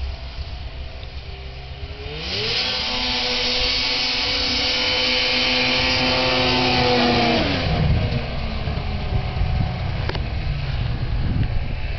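1992 Ski-Doo Formula Plus snowmobile's Rotax 580 two-stroke twin revving up sharply about two seconds in, then holding a high, steady whine at speed. Near the end its pitch drops a little and it fades away as the sled goes past and off into the distance.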